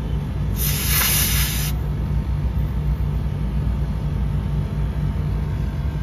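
A sharp hiss of refrigerant gas, about a second long, as a charging hose is screwed onto the service port of a split air conditioner's outdoor unit, letting gas into the hose. Under it runs the steady low hum of the outdoor unit running.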